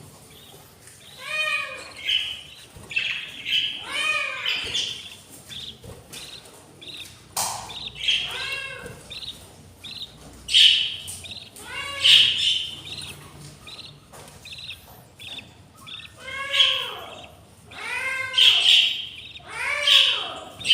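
Budgerigar chicks giving repeated begging calls: short, arching, slightly rasping cries that come in runs of three or four, with brief pauses between the runs. This is the sound of hungry nestlings asking to be fed.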